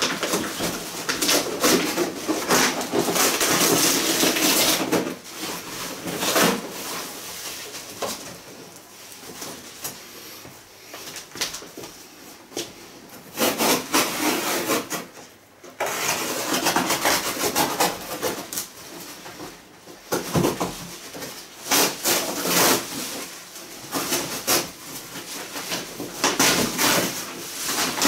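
Cardboard rubbing and scraping with irregular bursts of rustling, as a large TV box and its packing are handled and pulled about.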